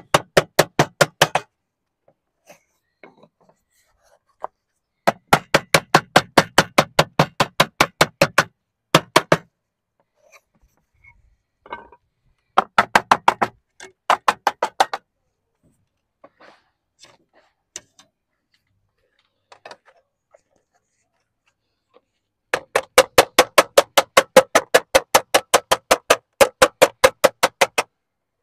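Sheet lead being dressed down on a roof with a lead dresser: fast, even strikes, about seven a second, in several bursts of a few seconds each with pauses between.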